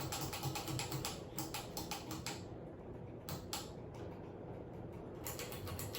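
A running 42-inch Harbor Breeze Centerville ceiling fan with a low hum and rapid, irregular clicking and ticking. The clicking thins out in the middle and picks up again near the end.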